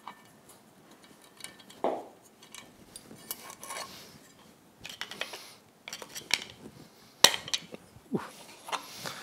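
Scattered metal clinks and knocks as the propeller and its hardware are worked off an outboard's splined propeller shaft and handled. The sharpest clank comes about seven seconds in.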